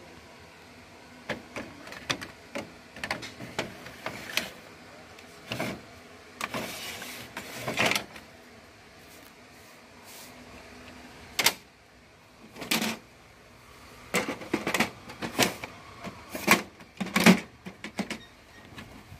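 Plastic parts of a Kyocera FS-6525 MFP photocopier being handled by hand: irregular clicks and knocks, with a scraping slide about seven seconds in and a cluster of sharper clicks near the end.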